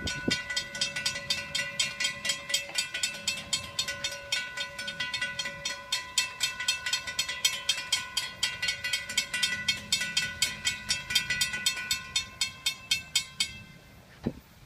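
Railroad grade-crossing warning bell ringing with rapid, evenly spaced strikes, warning of an approaching train while the crossing gates lower. It stops about a second before the end, leaving only faint background rumble.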